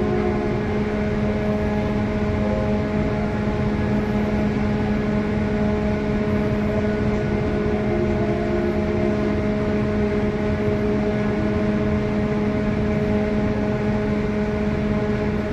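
Steady machinery hum of a large ship, holding several fixed tones over a low rumble without change.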